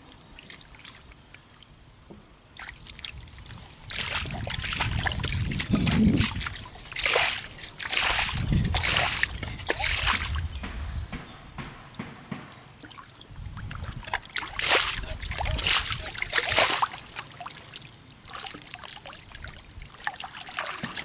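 Muddy water sloshing and splashing as it is scooped up and poured out with a steel bowl and stirred by hands digging in shallow mud. The splashing comes in two spells, the first starting about four seconds in and the second a few seconds after the middle.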